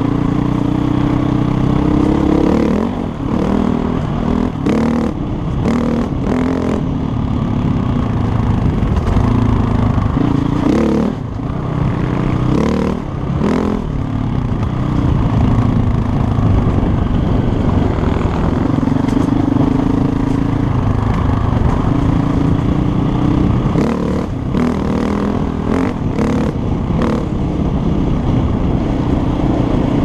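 2007 KTM 450 EXC single-cylinder four-stroke enduro engine running while riding a dirt trail, its revs rising and falling, with short bursts of clatter from the bike a few times.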